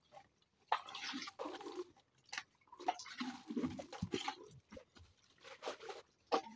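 Water sloshing and splashing as a plastic bucket is rinsed and tipped out over a basin of water, in three bursts, with a few sharp knocks between them.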